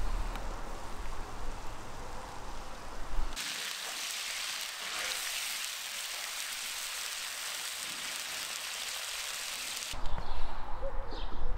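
Meat and potatoes sizzling in a large hot pan: a steady hiss that starts suddenly about three seconds in and cuts off near the end. Before and after it there is a low rumble of wind on the microphone.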